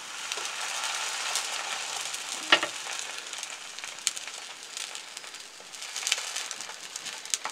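A buttered bread sandwich sizzling steadily on a hot grill pan, its buttered side freshly turned down onto the pan. A sharp click comes about two and a half seconds in, with a few lighter ticks later.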